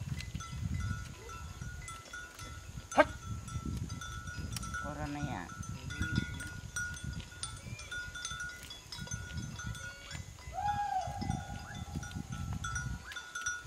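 Bamboo strips rustling and clicking as a doko basket is woven by hand, with one sharp crack about three seconds in. Livestock bleat over it, a short wavering call near the middle and one long call near the end, with steady high chirping behind.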